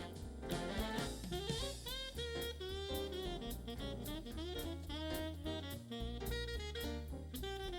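Background jazz music with a saxophone melody over bass and drum kit.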